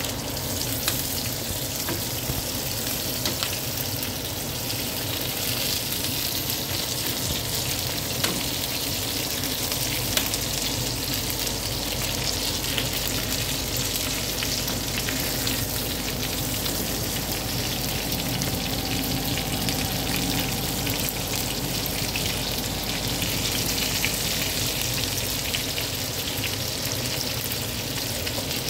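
Pork pieces and sesame seeds sizzling steadily in hot oil in a frying pan, with a few sharp clicks.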